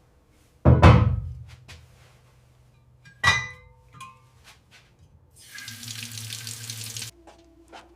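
Worksite handling sounds: a heavy thunk with a short low ring, a sharper ringing knock about three seconds later, then a hiss lasting about a second and a half near the end.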